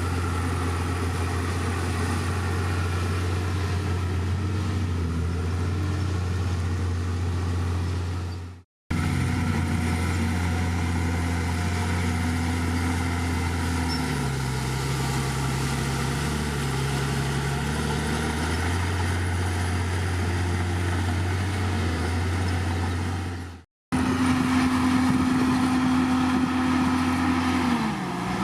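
Heavy diesel engine of earthmoving machinery running steadily under load, its note shifting down and back up a few times. The sound fades out abruptly twice, about a third of the way in and again near three quarters, then resumes.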